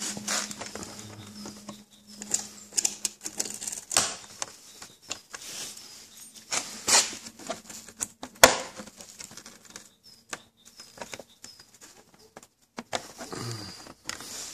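Irregular clicks, taps and rubbing as hands pull the wire body clips and handle the plastic body shell of an RC truck, with a few sharper snaps about 4, 7 and 8.5 seconds in. A low steady hum runs under the first half and fades out.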